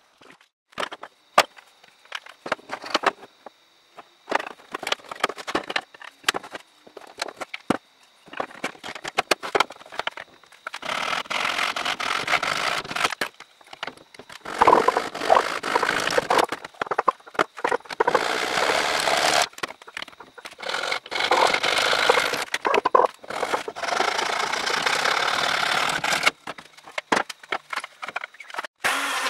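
Hand woodworking on a joint: scattered sharp clicks and knocks of wooden pieces being fitted and worked, then, about ten seconds in, long runs of rough rhythmic scraping of a tool across wood held in a bench vise.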